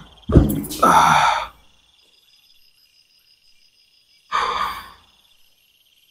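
A man breathing out heavily twice, a long breath near the start and a shorter one about four seconds in, over a steady high-pitched insect trill.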